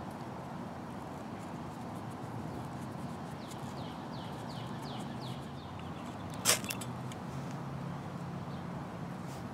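A single sharp scrape of a ferrocerium rod (firesteel) struck to light a Tinder-Quick tab, about two-thirds of the way in, with a couple of faint clicks just after it, over a steady background hiss.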